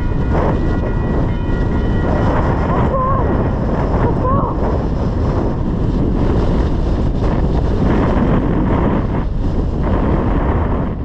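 Wind buffeting the microphone: a loud, steady rumble with no clear rhythm.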